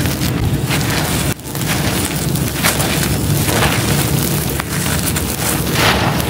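Hands squeezing and crumbling gritty charcoal, the grains and powder crunching and pouring back onto the heap in a continuous grainy hiss that swells and fades with each handful. A brief gap about a second and a half in.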